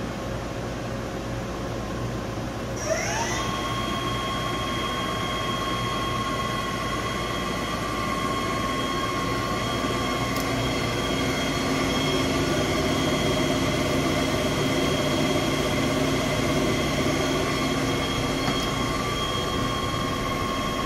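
You-Ji YV-1200 CNC vertical turning center running with a steady hum. About three seconds in, its drive winds up in pitch and settles into a steady whine as it comes up to speed.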